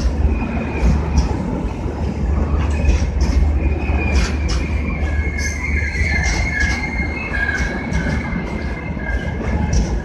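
Humsafar Express passenger coaches rolling slowly past while arriving at a platform: a steady low rumble with repeated clacks as the wheels cross rail joints. A steady high-pitched wheel squeal sets in about half a second in and is strongest through the middle, as the train slows.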